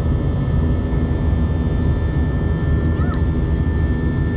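Airbus A320 jet engines and airflow heard inside the cabin in flight: a steady loud rush over a deep rumble, with several steady whining tones above it.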